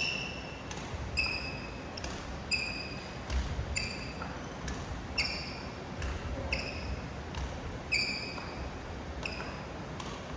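Badminton rackets striking shuttlecocks in a quick, even feeding drill, about three hits every two seconds. Each sharp crack carries a short, high ringing ping from the strings.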